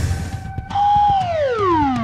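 Cartoon sound effect: a whistle-like tone that holds briefly, then slides steadily down in pitch, starting about two-thirds of a second in, matching a cartoon forklift lowering its load. Faint ticks of background music run underneath.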